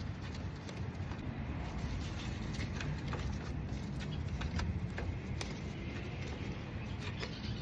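Faint, scattered small metallic clicks as a loosened nut is twisted off the shift linkage of a TH350 automatic transmission, over a steady low background rumble.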